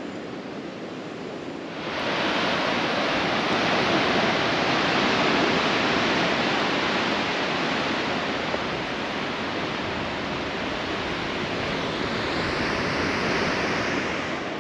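Ocean surf breaking on a rocky shore: a steady rushing noise that comes in suddenly about two seconds in, over a quieter outdoor hush.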